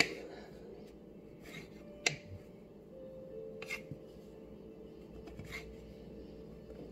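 Kitchen knife slicing mushrooms on a wooden cutting board: a few scattered taps of the blade against the board.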